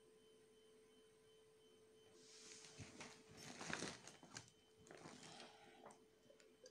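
A faint steady tone at first, then, about two seconds in, soft irregular rustling and handling noises as a hand-held phone is moved and a glass is picked up to drink from.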